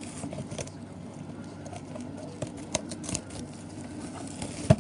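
Trading cards and plastic card holders being handled on a table: scattered light clicks and taps, with a sharper knock near the end, over a steady low hum.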